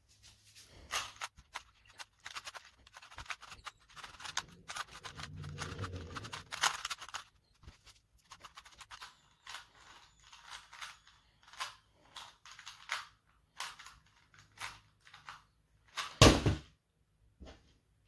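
A stickered 3x3 Rubik's cube turned fast in a speedsolve: rapid, irregular clicking and clacking of the layers snapping round, densest in the first half. A single loud knock comes near the end.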